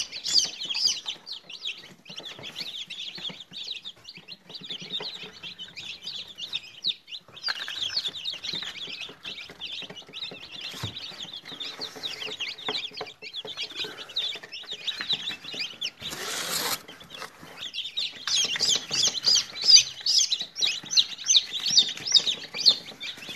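A flock of broiler chicks peeping constantly: many short, high chirps overlapping. They are busiest at the start and over the last few seconds. A brief rustling burst comes about two-thirds of the way through.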